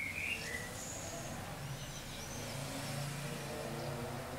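A motor vehicle's engine rumbling low, growing louder past the middle. A bird chirps briefly at the start.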